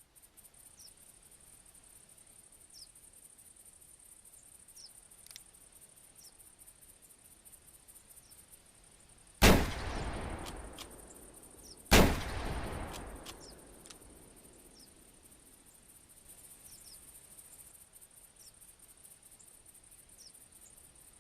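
.30-30 lever-action rifle fired twice, about two and a half seconds apart, each shot followed by a long echoing tail. A few light clicks follow each shot, fitting the lever being worked.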